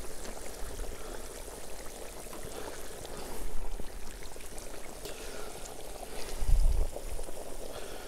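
Hot water in a steaming cast-iron kazan bubbling and rushing as a cloth bundle of soaked rice is lowered into it, with a dull low thump about six and a half seconds in.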